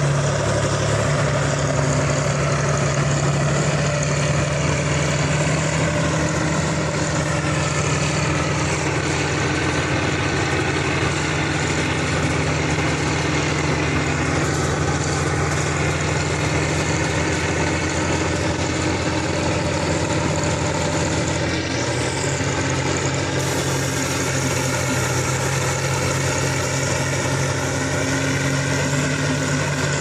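Heavy diesel engines of Kirovets K-700 articulated tractors running steadily, one tractor mired to its axles in mud while the other tows it. The engine note holds at a constant pitch and shifts slightly about two-thirds of the way through.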